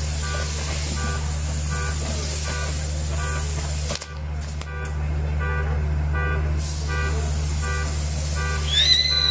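Castillo fireworks burning with a hiss of sparks, over a steady low hum and a short electronic beep that repeats about every two-thirds of a second. Near the end a high whistle rises and then glides down in pitch.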